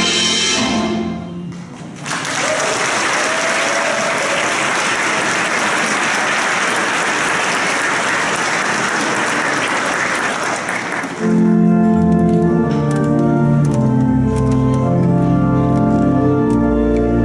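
A handbell choir's last chord rings out and fades, then the congregation applauds for about nine seconds. About eleven seconds in, a church organ starts playing sustained chords with deep bass notes.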